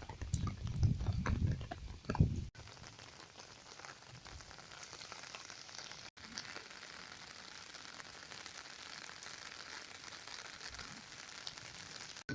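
Heavy monsoon rain falling, a steady even hiss, after low rumbling bumps in the first couple of seconds.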